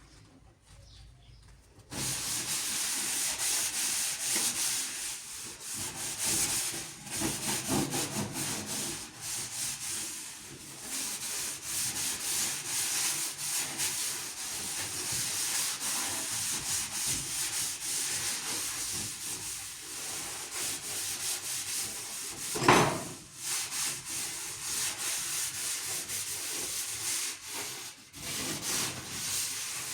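Continuous rough rubbing and scraping noise, starting about two seconds in and wavering in level, with one short, louder burst about three-quarters of the way through.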